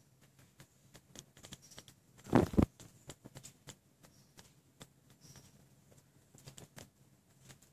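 Small wet clicks and smacks of a newborn kitten suckling on a finger, with a loud double thump about two and a half seconds in.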